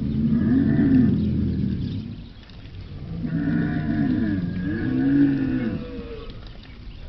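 Dromedary camel calling: a low, wavering call in the first two seconds, then a longer one in several rising-and-falling swells from about three seconds in until near six seconds.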